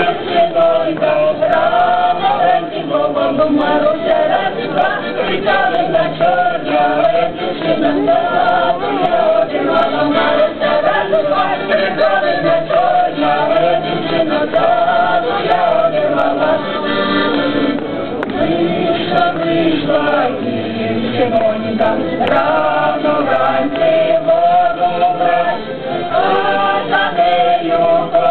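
Live folk music: a continuous melody that wavers slightly in pitch, with several parts sounding together in harmony and no breaks.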